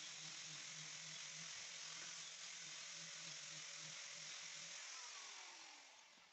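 Electric sander running steadily against a wooden table top with a hiss and a low hum. About five seconds in it is switched off and winds down, its pitch falling as it fades.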